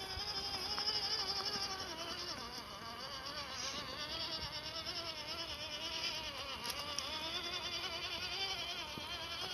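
Electric motor and gearbox of an MN99S 1/12-scale RC crawler whining with a buzz, the pitch wavering up and down as throttle and load change.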